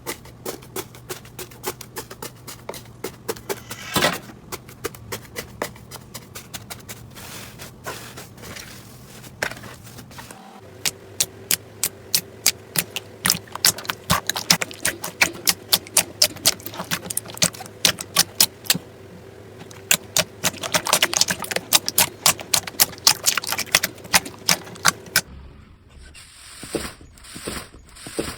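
Slime being squeezed and worked by hand, giving rapid sharp clicks and crackling pops.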